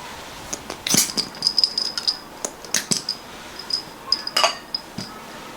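Plastic cupping cups being handled and taken off the skin: three sharp clicks about a second and a half apart, with light rattling and faint high squeaks between.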